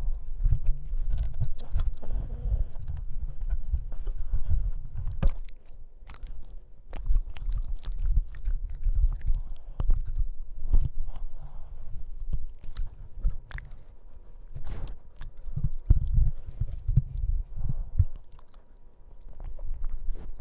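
Boston Terrier puppy chewing and gnawing on a microphone in its shock mount, heard right at the mic: irregular low thumps and rumble from the handling, with many sharp clicks. It eases off briefly near the end.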